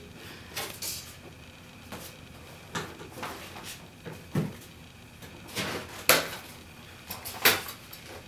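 Sheets of paper and a display board being handled on a tabletop: scattered paper rustles and light knocks of board against the table, the sharpest two knocks near the end.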